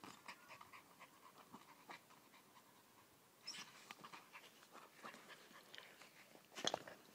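Jack Russell terrier panting faintly while nosing and mouthing a plastic ball, with a short louder noise near the end.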